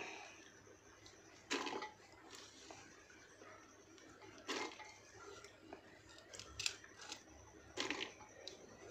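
Soaked kidney beans being handled by hand in water and an aluminium pressure cooker: three short, splashy clatters about three seconds apart, with small clicks and drips between.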